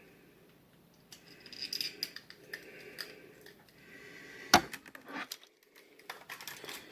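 Plastic parts of a Power Rangers Samurai Clawzord toy clicking and rattling as they are fitted back together, with one sharp snap about four and a half seconds in.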